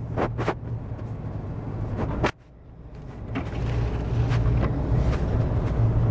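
Blizzard wind buffeting the microphone as a low, steady rumble, with a few sharp knocks in the first couple of seconds. The rumble cuts out suddenly a little over two seconds in and builds back up over the next couple of seconds.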